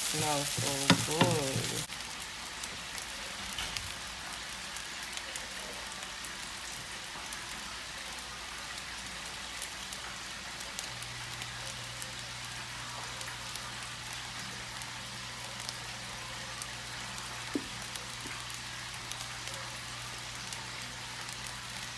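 Fried rice sizzling in a frying pan on a hot electric burner: a steady fine crackle of small pops. For the first two seconds it is louder while a wooden spoon stirs it.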